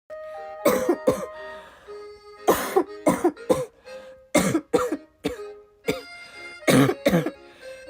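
Young woman coughing again and again in a fit, about a dozen coughs in clusters of two to four, with background music playing underneath.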